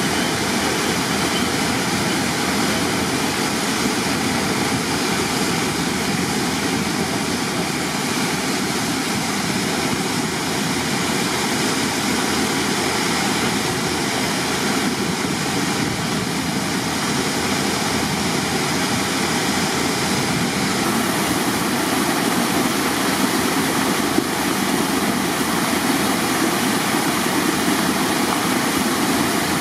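Steady rush of water jetting from a flood pump's discharge hose, with the pump's engine running underneath.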